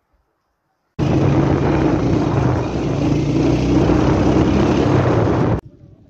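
A motor running at a steady pitch with a rushing hiss over it, cutting in suddenly about a second in and cutting off suddenly near the end.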